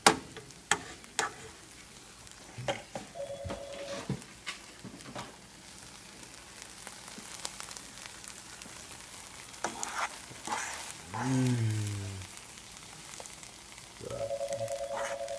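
Taco filling of meat, spinach and corn sizzling as it fries in a pan, with the clicks and scrapes of a utensil stirring it. A steady tone sounds briefly about three seconds in and again near the end.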